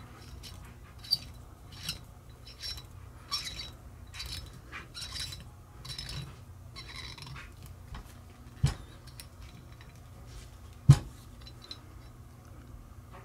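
Light metallic clinks and scrapes as a helicoil insertion tool is worked in the threaded holes of a steel axle bearing hub and the hub is turned in the hands. Two sharper knocks come in the second half; the later one is the loudest.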